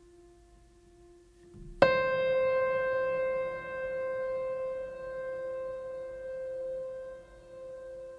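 Background music: a soft held tone, then about two seconds in a single loud piano-like note is struck and rings on, slowly fading.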